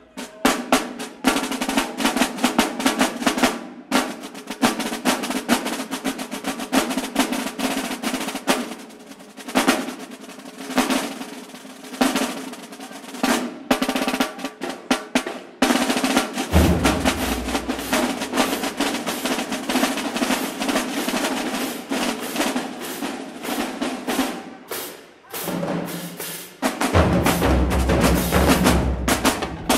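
Marching band drumline playing a cadence: snare drums beating fast rolls and rudiment patterns with short breaks. Marching bass drums come in about halfway through and pound heavily again near the end.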